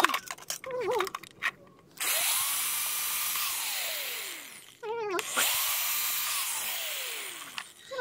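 Electric drill boring holes through PVC pipe in two runs, about two seconds in and again about five seconds in. Each time the motor spins up, runs steadily for a few seconds and winds down. Light handling clicks come before the first run.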